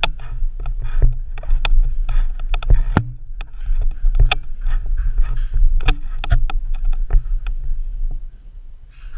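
Knocking and rubbing from a GoPro strapped to a moving dog: a steady low rumble with frequent sharp knocks and clicks, dying down about eight seconds in as the dog comes to rest.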